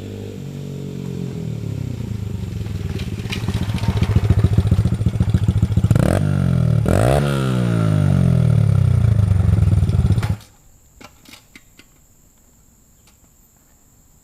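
Honda CRF100F dirt bike's single-cylinder four-stroke engine running and building revs, with a sharp dip and recovery in pitch about six seconds in, then falling revs. The sound cuts off suddenly about ten seconds in.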